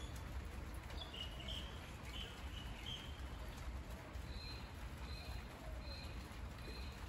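Steady rain falling on monstera leaves, with a bird calling over it: a warbling phrase in the first few seconds, then a short call repeated four times about three-quarters of a second apart.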